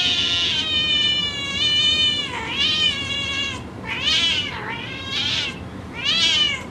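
Domestic cat meowing: one long drawn-out meow, then several shorter meows.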